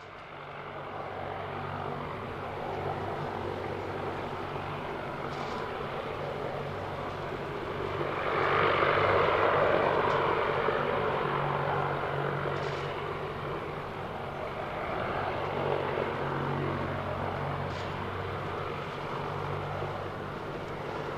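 Jet engines of an Airbus A320-214, CFM56-5B turbofans, running at low power on the ground. The engine noise is steady with a low hum, and swells louder for a few seconds about a third of the way in.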